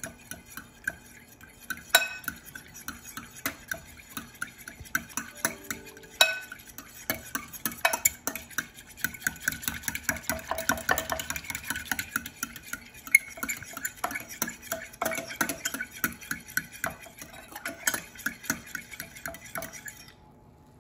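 Metal fork stirring a milk and cornstarch mixture in a glass bowl: quick, continual clinks and scrapes of the fork against the glass, with a few sharper clinks, stopping shortly before the end.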